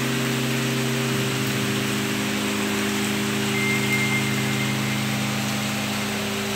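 Heavy rain pouring and floodwater rushing across a street, a steady loud wash of noise, with a steady low hum underneath that shifts slightly about a second in.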